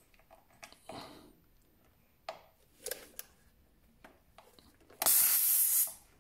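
A few light clicks of a tyre inflator's metal air chuck being fitted to a motorcycle's rear tyre valve, then a loud hiss of compressed air lasting about a second near the end as the chuck seats on the valve.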